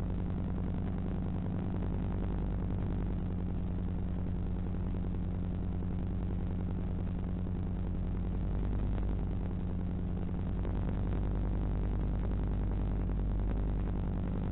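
A steady low electrical hum and buzz with hiss, unchanging in pitch: noise on the audio channel of an analog FPV video link, recorded by the receiver's DVR.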